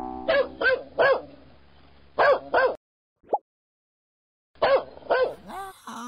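A dog barking in short runs: three barks, then two, then three more near the end.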